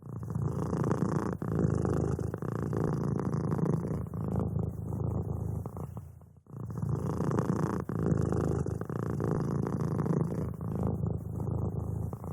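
A domestic cat purring steadily and close up, a fast rumbling pulse, with a short break about halfway through.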